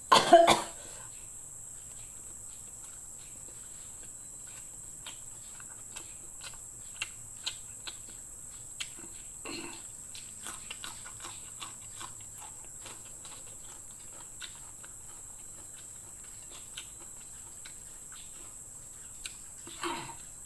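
Close-up eating sounds: a loud bite right at the start, then scattered soft chewing clicks and mouth smacks. A steady high-pitched hiss runs underneath.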